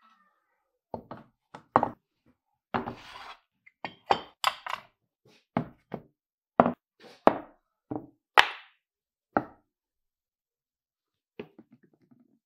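Cleaned cast-aluminium parts of a Bridgeport milling machine head, the belt housing and pulley pieces, set down and handled one after another on a wood-topped workbench. About a dozen irregular knocks and clunks, some with a short metallic ring, then a few softer clinks near the end.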